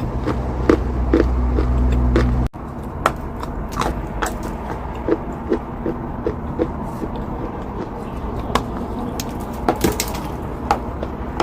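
Someone biting and chewing chalk close to the microphone: a run of short, sharp crunches, irregular, one or two a second. A low rumble underneath cuts off abruptly about two and a half seconds in.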